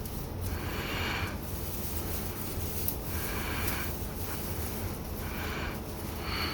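A person breathing close to the microphone, a soft breath about every two seconds, over a low steady hum.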